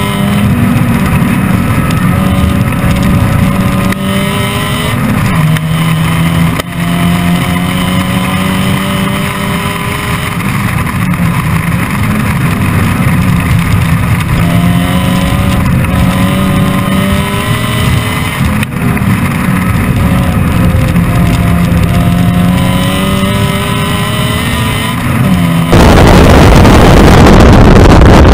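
Supercharged MX-5-based four-cylinder engine of a MEV Exocet running hard on track, its revs climbing and dropping several times through gear changes and corners. About 26 seconds in, it gives way to loud wind buffeting on the microphone that drowns the engine.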